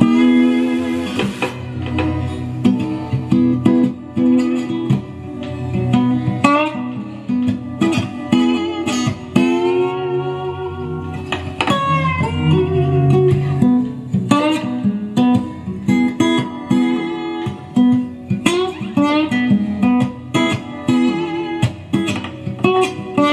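Guitar-led song with bending, sliding notes over a steady bass line, played through a DIY LM3886 bi-amplifier driving a 5-inch woofer and a separate tweeter.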